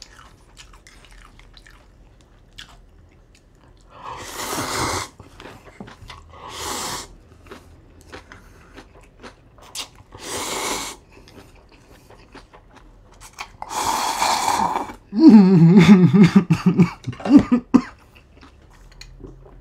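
Ramen noodles slurped in four long sucking pulls, with chewing between them, then a fit of coughing near the end: red pepper flakes from kimchi sucked in with the noodles have gone down the wrong pipe.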